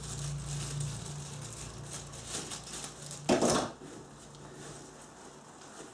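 Hand-tools and their packaging being handled and rustled while a tool bag is unpacked, with one louder, short handling noise a little past halfway. A low hum sits under the first half and fades out.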